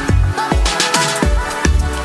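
Electronic background music with a steady, heavy bass beat and falling pitched sweeps after the beats.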